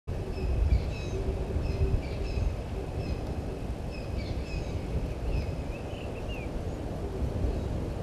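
Wild birds chirping in short, repeated whistled notes, a few of them rising near the end of the calling, which stops about two-thirds of the way through. Under the calls runs a steady low rumble.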